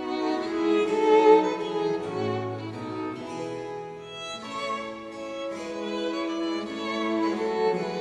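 Background music on bowed strings, violin and cello playing held, overlapping notes.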